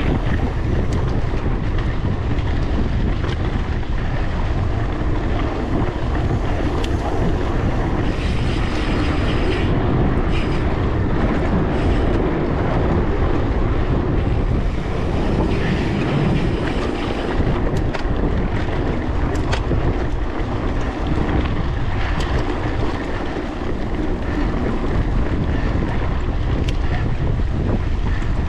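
Wind buffeting a GoPro's microphone on a bicycle ridden at speed, over the steady rush of tyres on a gravel road, with a few small clicks and rattles.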